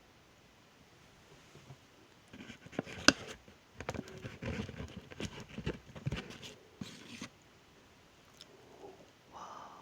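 Close-miked mouth sounds of eating: a run of wet clicks, smacks and chewing for about five seconds, starting a couple of seconds in.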